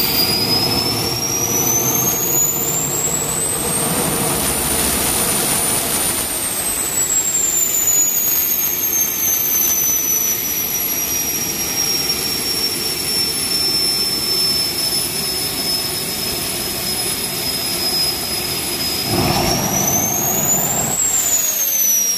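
Small 40,000-rpm jet turbine from an aircraft generator unit running loudly, a high whine over a steady rush. The whine climbs in pitch over the first few seconds, holds, then sinks and levels off. Near the end it surges up again with a heavier rush and then falls away.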